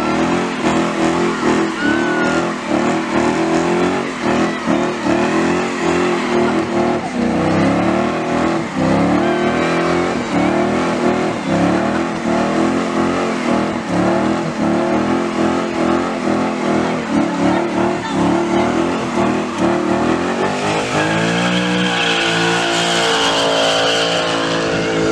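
Car engine held at high revs with a rapid, uneven pulse and tires squealing as it does a burnout. About 21 seconds in the revs fall away.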